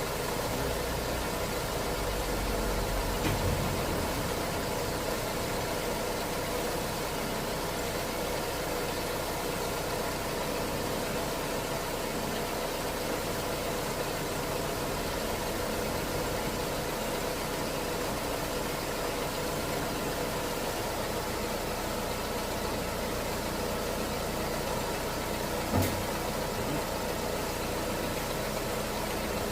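Nissan Almera's HR15 1.5-litre four-cylinder petrol engine idling steadily, left running for a transmission fluid level check. A single short knock comes near the end.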